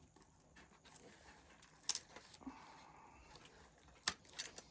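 Quiet handling of small parts during an RC truck teardown: one sharp click about two seconds in, and a few lighter clicks near the end.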